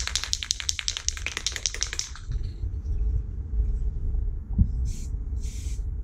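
Aerosol can of primer being shaken, its mixing ball rattling about five or six times a second, stopping about two seconds in. Near the end come two short hisses of spray.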